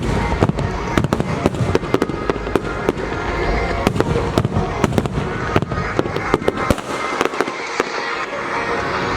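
Fireworks going off in a rapid, irregular string of sharp bangs over a dense continuous din; the deep rumble underneath drops away for a moment about seven seconds in while the bangs go on.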